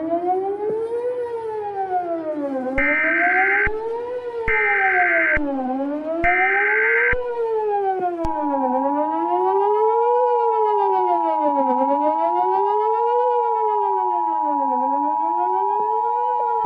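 Emergency Alert System alert: a siren wails up and down, about one rise-and-fall every two and a half seconds. Over it come three short bursts of screechy SAME header data tones, then, from about halfway, the steady two-tone EAS attention signal.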